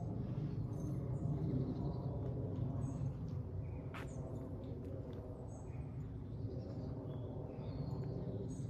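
A steady low mechanical hum, with small birds chirping high over it and one sharp click about four seconds in.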